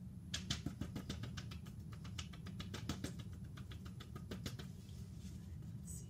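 Fingertip tapping rapidly on a picture-book page, pressing a printed button many times in quick succession, several taps a second, stopping about four and a half seconds in. A brief rustle of the book follows near the end.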